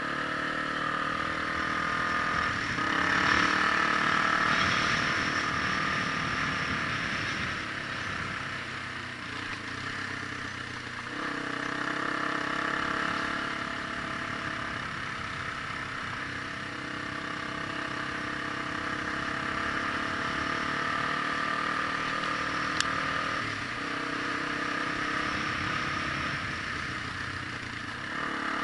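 Vehicle engine running while driving, its pitch and loudness shifting as speed changes, with a single sharp click near the end.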